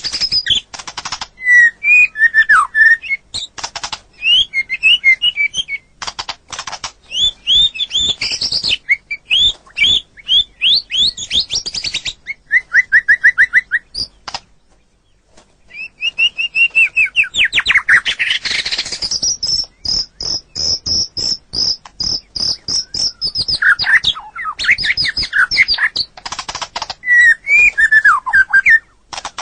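White-rumped shama (murai batu) singing a long, varied song of rapid chirps, trills and sweeping whistles, with a short pause about halfway through followed by a run of high, held notes.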